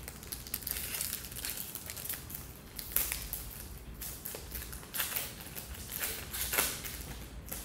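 Foil wrapper of a Pokémon TCG booster pack crinkling as it is handled and opened, in a run of irregular crackly rustles, the sharpest about three, five and six and a half seconds in.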